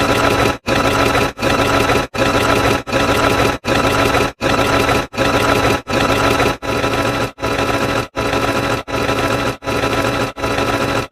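A short, loud, noisy sound-effect clip played over and over, restarting about every three quarters of a second with a brief silent gap between repeats, roughly fourteen times.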